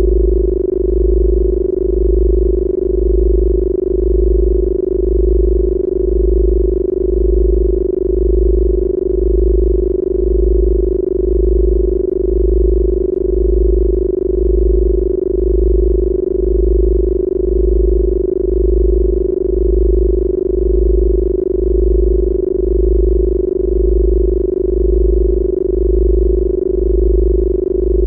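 Electronically generated 'Rife frequency' healing tones: a steady mid-pitched hum over a deep bass tone that pulses evenly a little more than once a second.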